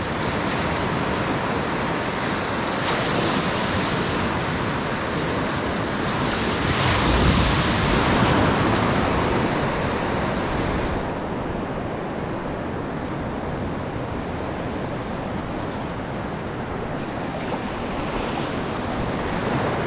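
Atlantic surf breaking and washing around the feet of a wading angler. A wave swells loudest about seven seconds in, and the wash grows quieter and duller after about eleven seconds.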